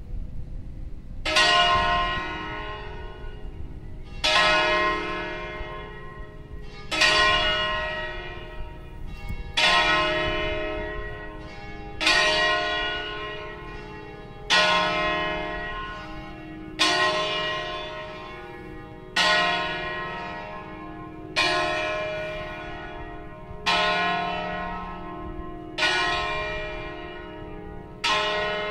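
Church bells of a Veronese-style ring, the E♭, F and G bells, striking at a steady pace, about one stroke every two and a half seconds, each stroke ringing out and fading before the next.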